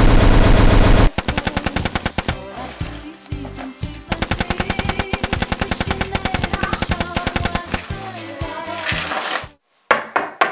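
Rapid machine-gun fire over background music: very loud for about the first second, then going on in fast strings of shots until it cuts off shortly before the end.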